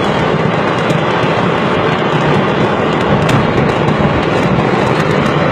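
Exploding fireworks stock crackling and popping in scattered sharp reports, heard over the steady rumble of a moving car.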